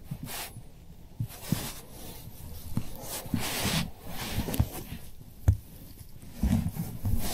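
Irregular close-up handling sounds: rustling and scraping with scattered light knocks, the sharpest about five and a half seconds in, then a short run of dull thumps near the end.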